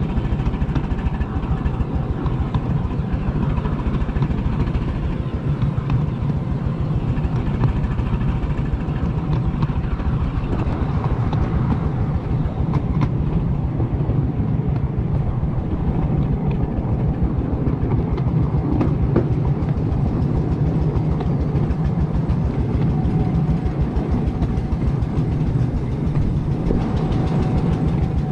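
Miniature railway train running along its track: a steady rumble of wheels on rail with a light clickety-clack, and a thin steady whine running through it.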